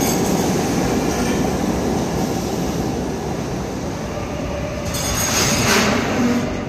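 R32 subway train pulling out of the station: steel wheels rumbling and squealing on the rails as it moves away, with a louder rush of hiss about five seconds in before the sound falls off.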